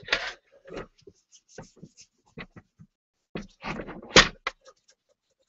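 Paper tissue rubbed in short scratchy strokes over a glazed ceramic bowl, polishing the metal on its kintsugi repair lines, with handling noises as the bowl is turned and a sharp knock a little after four seconds in.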